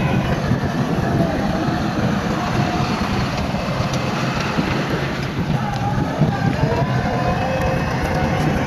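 Heavy diesel earthmoving machinery running steadily under load, a deep engine rumble with a faint wavering whine above it.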